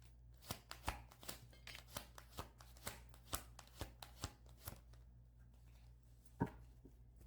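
Tarot deck being shuffled by hand: a run of light, sharp card clicks, a few a second, that thin out after about five seconds, with one more snap near the end.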